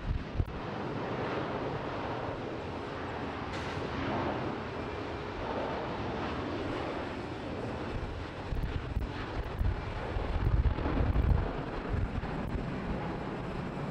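Airbus A350-1000 jet engines (Rolls-Royce Trent XWB) running at taxi power as the airliner taxis, a steady rushing hum. Wind gusts on the microphone near the start and again in the second half.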